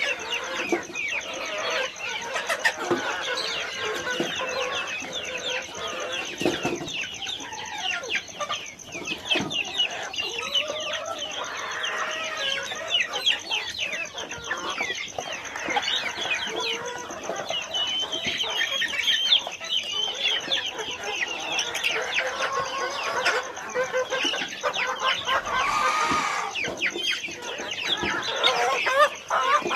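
A large flock of chickens in a poultry farm clucking and calling, with many short overlapping calls.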